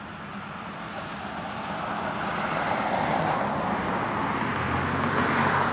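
A car driving along the road, its tyre and engine noise growing steadily louder as it approaches, loudest near the end.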